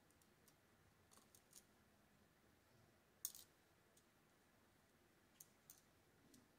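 Faint, sharp metal clicks of a small screwdriver on the screws and side plate of a Shimano TLD 30 fishing reel, against near silence: a few light ticks about a second in, a louder click just past three seconds, and three more light ticks near the end.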